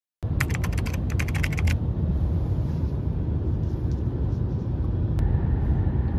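Steady low road rumble inside the cabin of a car driving on a highway. It opens with a quick rattle of sharp clicks lasting about a second and a half.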